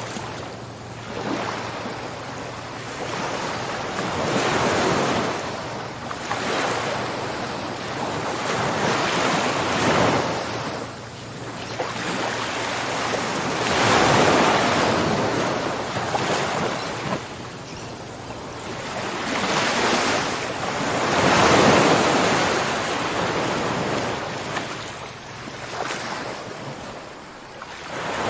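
Ocean surf washing onto a shore: a steady rush of breaking waves that swells and eases every few seconds.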